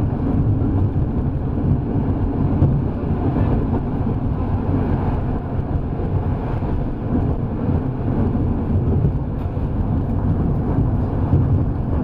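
Electric tram running along a street track, heard from on board: a steady low rumble of wheels on the rails and running gear.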